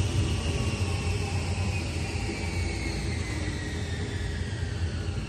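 Tokyu 8500-series electric commuter train's traction motors whining, with the pitch falling steadily as the train slows. The whine sits over a steady low rumble of the running gear.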